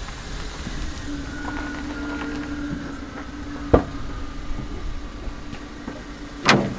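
Small waste-collection truck pulling up and running close by, a steady low engine hum with a faint higher whine over it. There is a sharp knock midway and a louder thump near the end.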